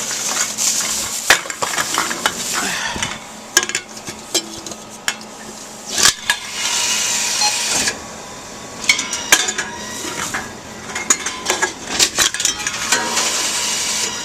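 Empty beverage cans being fed one after another into an Envipco CF-1500 reverse vending machine: repeated metallic clinks and clatters of the cans, with a few stretches of steady machine noise lasting a second or more as the machine takes them in.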